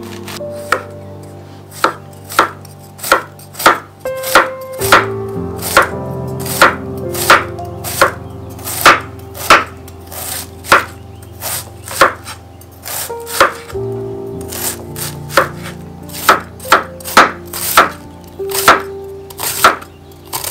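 Chef's knife cutting through a head of green cabbage on a wooden cutting board, shredding it: a steady run of crisp chops, about one and a half a second.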